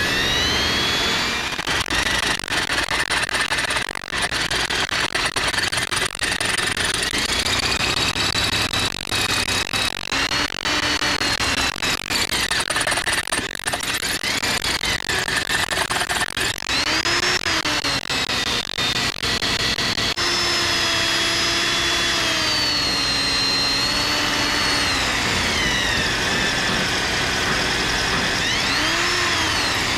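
Cordless drill boring out the wheel stud through an over-torqued, seized lug nut, its motor whine rising and falling in pitch as the bit loads up in the steel. The cutting is rough and uneven for the first two-thirds and smoother and steadier after about twenty seconds.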